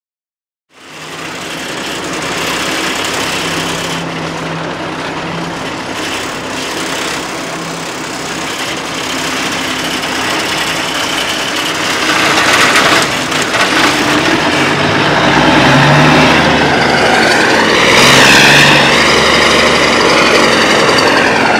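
1979 International Transtar cabover's Cummins 290 inline-six diesel running as the truck pulls away, heard from inside the cab. It grows louder about halfway through, and its pitch rises and falls near the end as the driver works the throttle.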